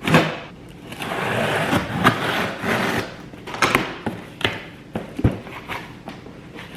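A cardboard delivery box being opened and unpacked: a thump, about two seconds of ripping and scraping, then several sharp knocks and clicks as the packaging and items are handled.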